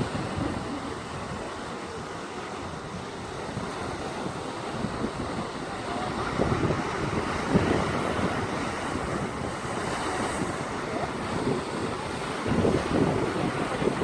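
Wind buffeting the microphone in uneven gusts over the steady wash of waves breaking on a beach.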